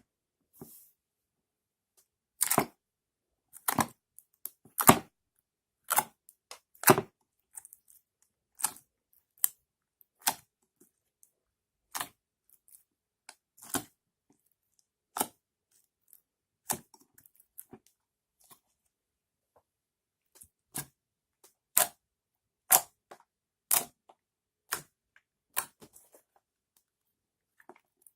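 Store-bought slime being mixed and squished by hand, giving irregular sharp clicks and pops, roughly one a second, with silence between.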